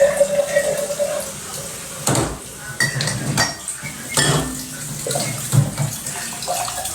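Running water with dishes and cutlery clattering, several sharp clinks from about two seconds in, as kitchenware is washed. A steady pitched tone sounds for about the first second.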